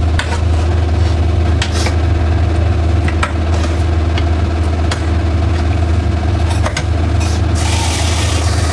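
Kitchen range hood extractor fan running with a steady low hum. Light clinks of a spoon against the pot come now and then, and a brief hiss comes near the end.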